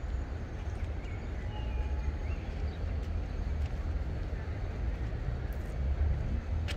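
Outdoor ambience: a steady low rumble, with a few faint clicks and some brief faint high chirps between one and three seconds in.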